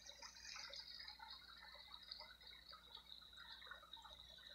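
Near silence: faint room tone with a low steady hum and a faint high hiss.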